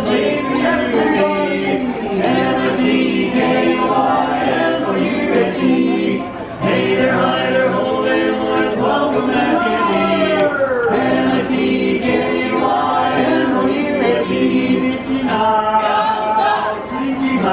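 Barbershop quartet singing a cappella in close harmony, holding chords and gliding between them.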